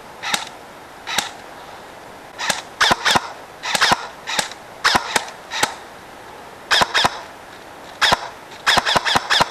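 Airsoft guns firing: sharp cracks in single shots and quick doubles and triples, coming irregularly, with the busiest run near the end.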